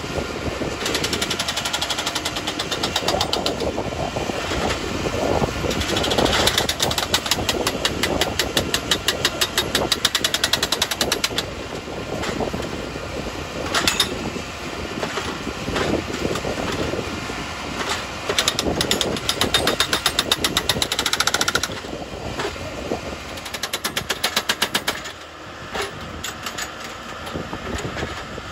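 Rail tie spiker machine driving spikes into the ties to fasten them to the rail: rapid mechanical hammering in repeated bursts of several seconds, over the machine's engine running.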